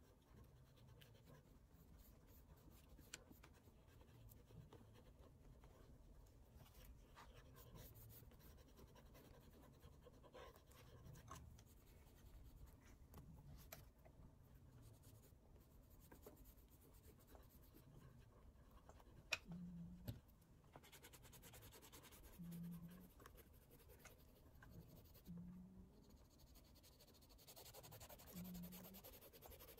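Faint scratching and rubbing of an oil pastel stick and fingertips blending the pastel on sketchbook paper, with an occasional sharp click and a few soft low thuds about three seconds apart in the second half.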